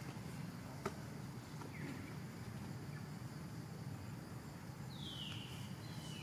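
A short, high-pitched animal call that falls in pitch near the end, with a faint chirp earlier. It sits over a quiet outdoor background hum, and a single sharp click sounds about a second in.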